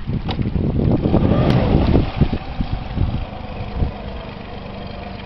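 Honda 60 four-stroke outboard motor running at idle as the boat comes alongside the quay. Heavy low buffeting, like wind on the microphone, is loudest over the first three seconds, and then the engine runs on steadily.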